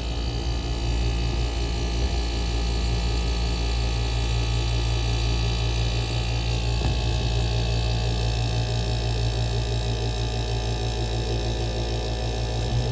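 Compressor of a 1977 GE Superthrust window air conditioner running with its fan stopped: a steady low hum with a few fixed tones, the unit working well.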